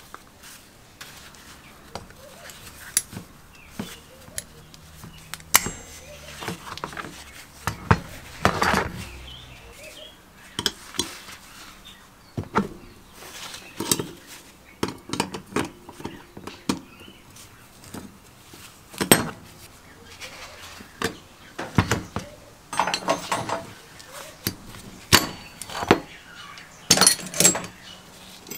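Steel hand tools and the steel lever arms and pivot parts of a 1950s Aerite foot pump clinking and knocking against each other and the work mat as the pump's pivot is taken apart with locking pliers and a spanner. An irregular run of sharp metallic clinks, with a few longer rattling, scraping stretches.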